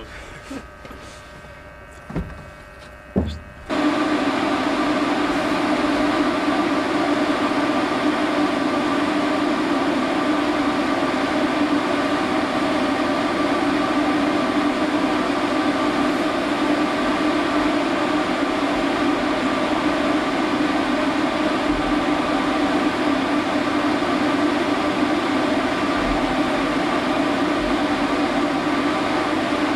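A steady machinery drone with a strong low hum and several fixed tones. It cuts in suddenly about four seconds in and runs unchanged. Before it, there are two soft knocks.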